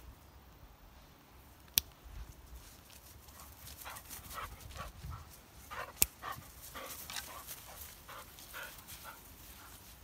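A dog panting close by in a run of quick, short breaths starting about three and a half seconds in. Three sharp clicks, the loudest sounds, come at the very start, near two seconds and about six seconds in.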